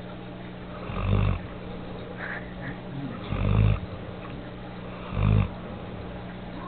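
English Mastiff puppy snoring while fast asleep: three loud snores, each about half a second long and about two seconds apart.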